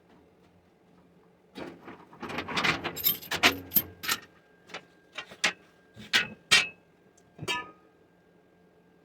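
Irregular knocks and clatter, a dozen or so sharp strikes over about six seconds, starting a second and a half in and stopping near the end.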